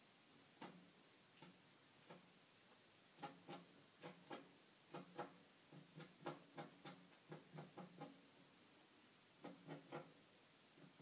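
Faint, irregular taps of thumbs typing on a smartphone touchscreen, coming in quick runs with short pauses.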